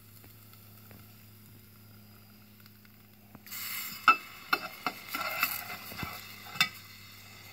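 Liquid nitrogen boiling and sizzling, with crackles and sharp clicks, as an LED light module is lowered into it; it starts suddenly about three and a half seconds in, after a faint steady hum.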